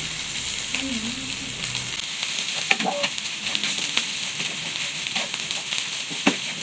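Rice with sausage and egg sizzling in a hot frying pan while a wooden spatula stirs it, with a steady hiss and scattered short knocks and scrapes of the spatula against the pan.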